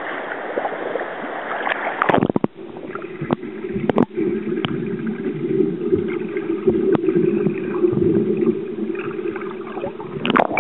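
About two seconds of rushing water noise, then muffled underwater sound: a steady low rumble with scattered clicks and gurgles as a swimmer drinks beer from a glass bottle underwater and lets out air bubbles.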